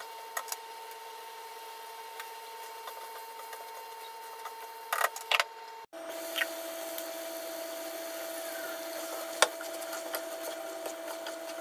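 Steady hum that drops abruptly to a lower pitch about six seconds in, with a few light clinks of a cooking spoon against the pan and its glass lid, the loudest near the middle and again after about nine seconds.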